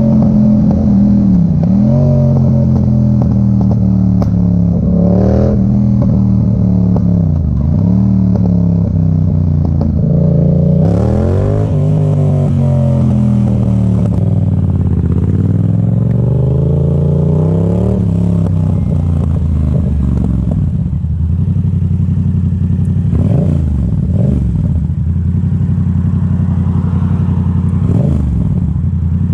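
Yamaha MT-07's 689 cc parallel-twin engine through an Arrow exhaust with the dB killer removed, its pitch dipping and rising several times as the throttle opens and closes. It then settles to a steady note, with a few short throttle blips near the end.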